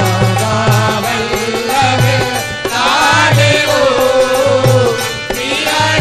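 Hindu devotional naam dhuni (repeated chanting of the divine name) sung to a melody over a steady, rhythmic low drum beat.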